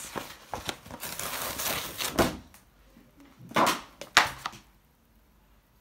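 White iron-on vinyl sheet being peeled off a sticky cutting mat and handled: a crackling plastic rustle, with a sharp clack a little after two seconds and two louder clattering bursts around three and a half to four seconds in.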